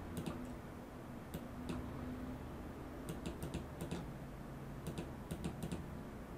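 Computer mouse clicking in small quick groups of clicks, over a faint steady low hum.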